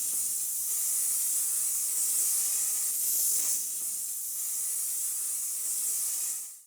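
Steady hiss of spray paint being sprayed in one long pass, stopping abruptly near the end.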